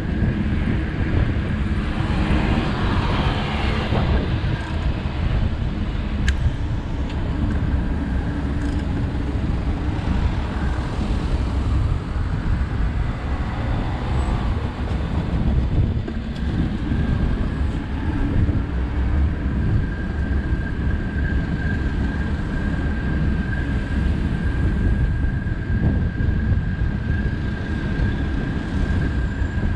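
Steady city street traffic heard from a moving bicycle: a continuous low rumble of passing cars. A thin steady whine joins about halfway through.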